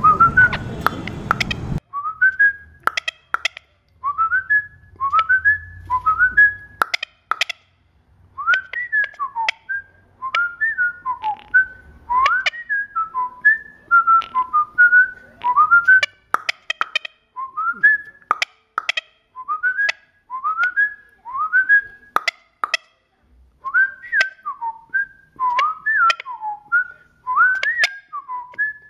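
Whistling: a long run of short, high, chirp-like notes, most sliding upward, in quick phrases of three or four with short pauses between, and faint clicks among them.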